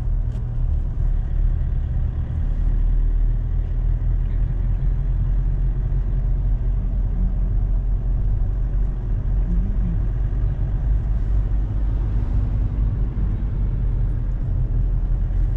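Engine and road noise heard inside the cabin of a moving vehicle: a steady low rumble.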